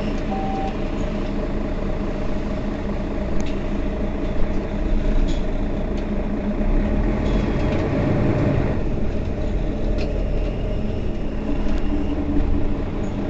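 Mercedes-Benz Citaro Facelift city bus engine running steadily, building up about seven seconds in and dropping back suddenly around nine seconds, with a few light clicks and rattles.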